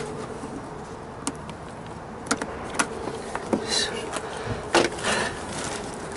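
Gloved hands handling a car's wiring harness and plastic connectors: scattered clicks, rustles and short scrapes, the loudest a scrape about five seconds in. A steady hum runs underneath.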